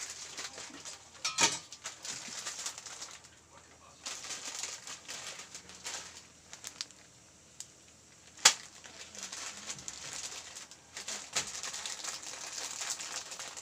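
Kitchen handling noises at a gas stove: sharp clinks of aluminium cookware, the loudest about a second and a half in and again past the middle, with rustling of a plastic instant-noodle packet between.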